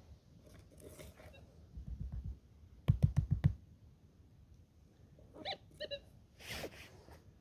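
Small prospecting pick digging into dirt: a few soft thuds, then about five sharp knocks in quick succession. Then two short beeps from a Minelab Gold Monster metal detector as the pick head is passed over its coil, followed by a brief scrape.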